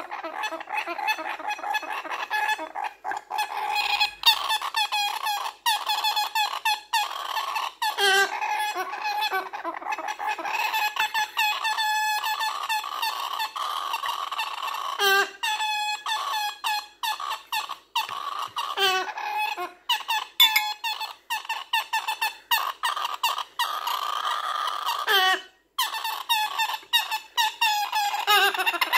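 Baby galah giving a rapid string of harsh, squeaky begging calls, several a second, as it is hand-fed, with a few short pauses.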